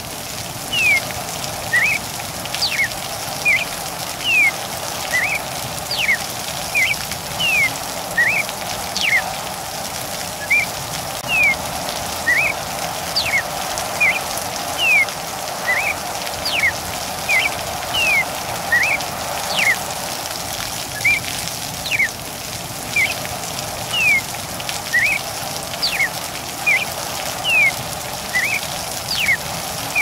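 Steady rain with a cardinal singing over it: short whistled notes, some sweeping steeply down, repeated at about three every two seconds.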